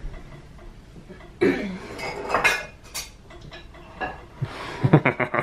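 Kitchen utensils clinking and scraping against a glass mixing bowl and dishes, with a few sharp clinks midway and a quick run of clinks near the end.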